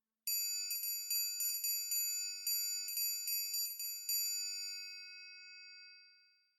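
Metal triangle struck about a dozen times in a quick, uneven rhythm, giving a high, bright ringing. After the last strike, about four seconds in, it rings on and fades away.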